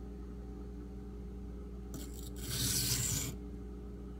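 A single stroke of the AUS-8 steel tanto blade's edge across a Shapton Pro waterstone, heard as a scraping hiss that starts about two seconds in and lasts just over a second, over a steady low hum. The stroke is made at a lowered sharpening angle.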